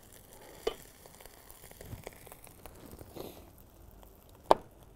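Fried rice sizzling faintly in a hot wok, the sizzle fading out after about three seconds, with a small knock about a second in. Near the end comes a sharp clink of a ceramic bowl knocking against a plate, the loudest sound.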